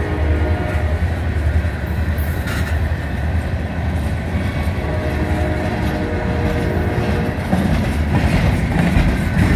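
Long Conrail freight train rolling past with a steady low rumble. About five seconds in, a train horn sounds a held chord for about two seconds.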